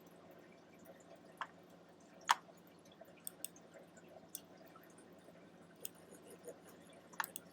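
Sparse, irregular sharp ticks over a steady low hum, about eight in all and falling unevenly, with two close together near the end.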